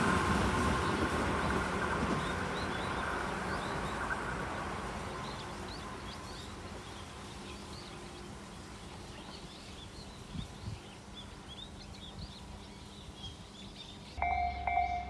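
Tobu 10030-series electric train running away down the line, its rumble fading over the first several seconds. Small birds then chirp over quiet background noise, and a ringing tone starts suddenly just before the end.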